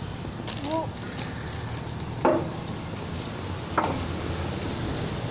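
Plastic packaging of a bag of modelling clay being handled and crinkled, with two short sharp sounds about two and four seconds in, over a steady low hum.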